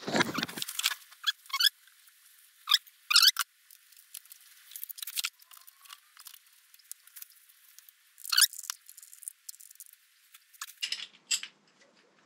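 Scattered sharp metallic clicks and brief squeaks of tools and parts being handled as the clutch derby cover is fitted back onto a Harley-Davidson Evolution primary case and its screws are turned in.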